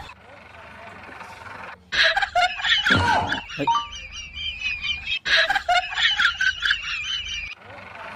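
High-pitched, rapidly wavering voices in two stretches, starting about two seconds in and again about five seconds in, after a quieter opening.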